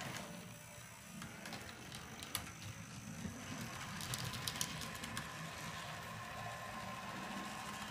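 HO scale model streetcars running on track: a steady low motor hum with scattered clicks of the wheels over the rails. A cluster of clicks comes about four seconds in as a car crosses a turnout, and a faint steady whine joins in about halfway.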